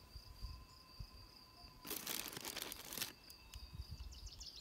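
Crickets trilling steadily in a high continuous tone. About two seconds in, a brief crinkling rustle lasts about a second. Near the end, a bird starts singing in quick, falling chirps.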